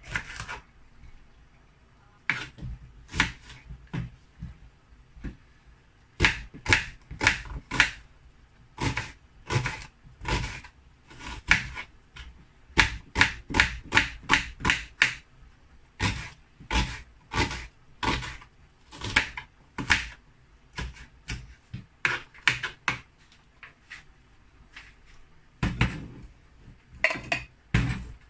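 Kitchen knife chopping red peppers and onion on a wooden cutting board: quick runs of sharp knocks of the blade on the board, with short pauses between runs. A few heavier, duller knocks come near the end.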